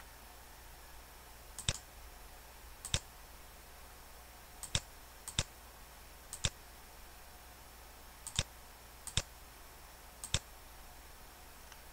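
Computer mouse button clicking about eight times at irregular gaps of a second or so. Each click is a quick press-and-release pair of ticks. A faint steady room hum sits underneath.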